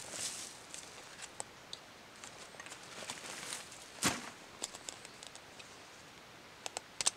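Rustling and handling of a backpack and gear on the forest floor, with scattered light clicks, one sharper knock about four seconds in, and a quick run of clicks near the end as the pack is shouldered.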